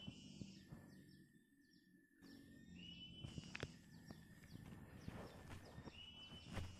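Faint outdoor background of birds chirping and calling, with short repeated chirps and a couple of held whistled notes, over a steady thin high tone; a few soft clicks and rustles of handling.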